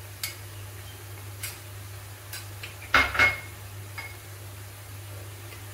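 Steel spatula knocking and scraping against a metal kadai of vegetable masala: a few light clinks, then a louder clatter about three seconds in.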